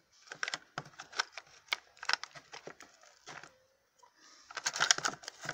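Irregular plastic clicks and paper crinkling as fingers work a Blume toy doll up out of its plastic flower-pot packaging, busiest about a second before the end.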